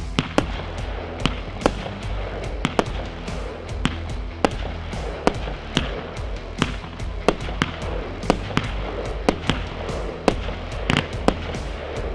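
Weco 'Fire Dome' 108-shot firework compound firing, with sharp bangs and launch reports about twice a second, over background music.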